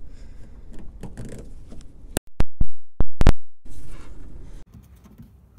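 A screwdriver prying at the plastic trim panel of a minivan's rear liftgate: faint scraping, then a quick run of five or six sharp, loud clicks and knocks about two seconds in, followed by a brief rustle.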